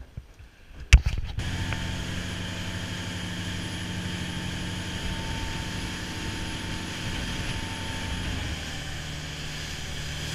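A sharp click about a second in, then a charter fishing boat running at speed: a steady engine drone under the rush of spray and water along the hull.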